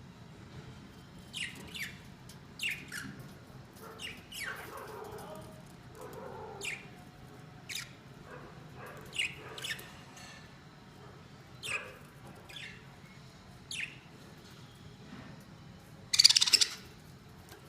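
Pet budgerigars chirping: short, sharp calls that fall in pitch, about one a second, with a louder, harsher burst near the end.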